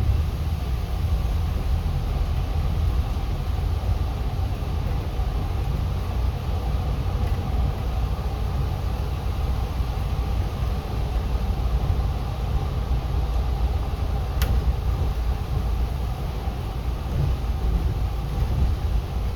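Steady low rumble of a city bus in motion, heard from inside the cabin: engine and road noise with an even hiss above it. A single sharp click about three-quarters of the way through.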